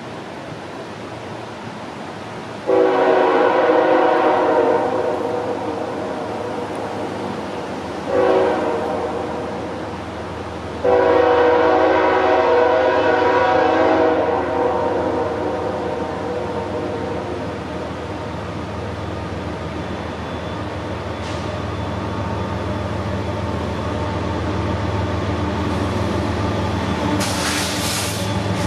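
Diesel freight locomotive sounding its air horn in three blasts, long, short, long, over the rumble of its engines, which grows steadily louder as the train approaches. A brief hiss sounds near the end.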